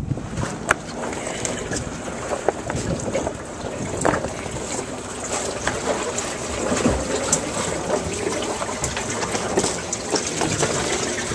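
Rustling and scattered knocks of a handheld camera being moved and covered, over a steady wash of wind and water noise.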